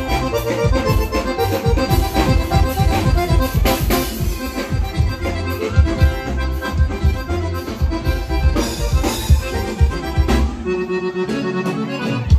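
Live forró band playing without vocals: an accordion-voiced lead from the keyboard over drum kit and bass with a steady dance beat. Near the end the kick and bass drop out for about a second and a half, then come back in.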